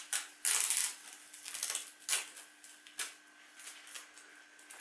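Clear adhesive tape being peeled off a cork rod grip and crumpled, in a series of short rips, the loudest about half a second in. The tape sleeve that held the freshly glued cork repair in shape is being removed.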